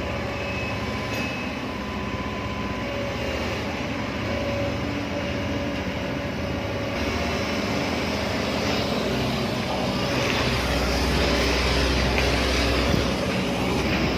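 Excavator's diesel engine running steadily, getting louder and deeper about ten seconds in.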